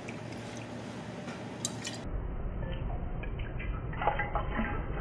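Vodka being poured from a bottle into a steel jigger, then tipped from the jigger into a stainless steel cocktail shaker tin: a trickle and splash of liquid with a few light metal clinks, the pouring louder near the end.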